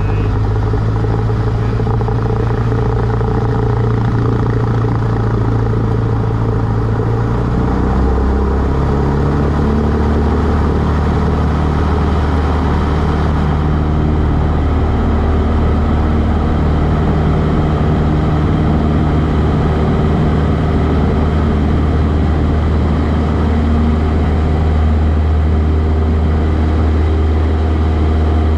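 Cessna 152's four-cylinder Lycoming engine and propeller running steadily, with a shift in engine tone about eight seconds in.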